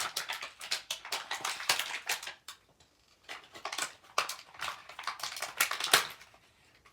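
Plastic Beyblade parts and packaging being handled: a busy run of small clicks, taps and crinkles, pausing briefly about two and a half seconds in, then going on until shortly before the end.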